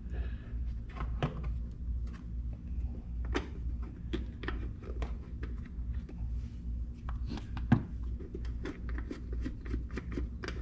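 Plastic air filter cover of a Powermate 1850 portable generator being pressed and worked back into place by hand: irregular clicks, taps and scrapes, with one sharper knock about three-quarters of the way through, over a steady low hum.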